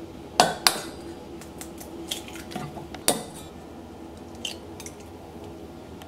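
Stainless steel mixing bowl and metal kitchen utensils clinking and knocking as an egg is cracked into the bowl: a few sharp clinks, the loudest about half a second in and just after three seconds, with lighter taps between.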